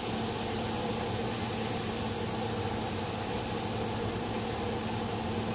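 Shrimp frying in oil in a hot pan: a steady sizzling hiss, with a faint low hum underneath.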